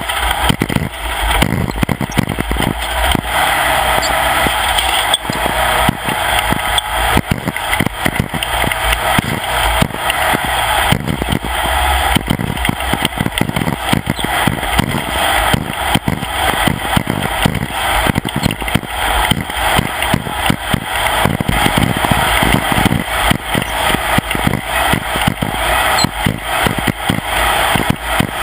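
Off-road race vehicle driving hard over rough ground: the engine runs steadily under a constant clatter of jolts and rattles.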